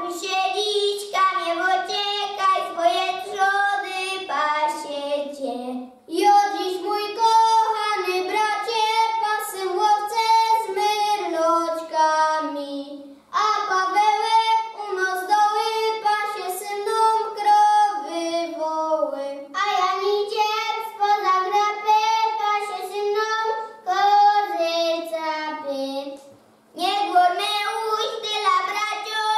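A group of children singing together, in sung phrases separated by brief pauses about every six seconds.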